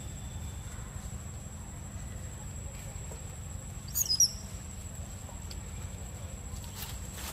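Forest ambience: a steady high insect drone over a low rumble, with a brief quick bird chirp about four seconds in.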